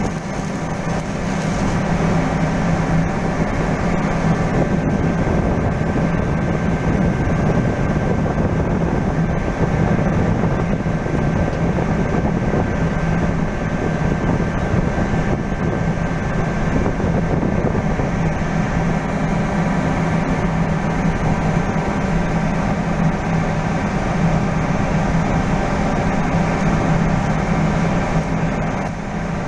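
Steady drone of running heavy machinery: a constant low hum with a faint high steady tone above it, unchanging throughout.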